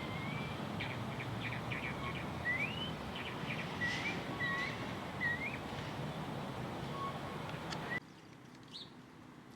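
A bird calling with a series of short rising whistled notes and a few clicks over a steady background hiss; about eight seconds in the hiss drops away abruptly and one faint chirp follows.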